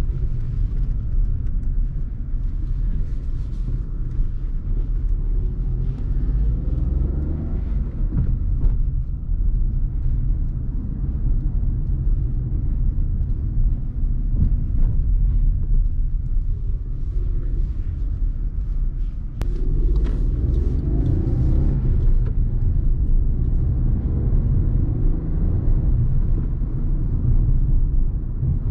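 2019 Volkswagen Polo's 1.0-litre three-cylinder petrol engine running under way, with steady tyre and road rumble, heard from inside the car. The engine note rises and falls twice, and there is a single sharp click.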